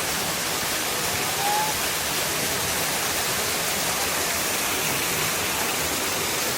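Waterfall pouring into a pool: a steady, dense rush of falling water.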